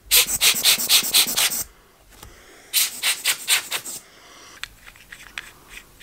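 Quick rubbing strokes of a cloth on a camera lens as it is wiped and polished, in two bursts of about five strokes a second. Lighter scratches and small clicks follow near the end.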